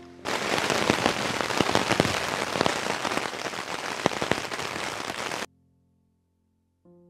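Heavy rain falling, dense with sharp drop hits. It cuts in suddenly just after the start and cuts off abruptly about five seconds later.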